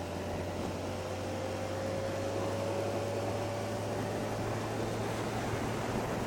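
Wind rushing over the microphone on a moving BMW K1300S motorcycle, with the inline-four engine's steady low hum underneath and a faint tone rising slightly in pitch over the first few seconds.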